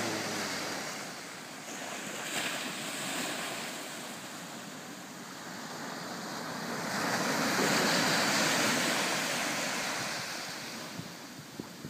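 Ocean surf breaking and washing up a sandy beach, a steady rushing wash that swells to its loudest about two-thirds of the way through and then eases off.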